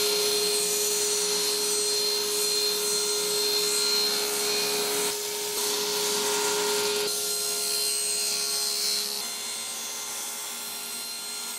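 General International table saw running and cutting a 30-degree bevel along a thin board: a steady motor hum under the cutting noise. About seven seconds in the hum drops out and the sound slowly fades.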